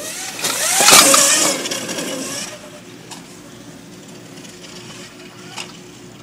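A Zero electric dirt bike passing close by over a jump: a brief rush of motor whine and knobby-tyre and drivetrain noise that peaks about a second in, its pitch falling as it goes past, and fades within a couple of seconds. A short click near the end.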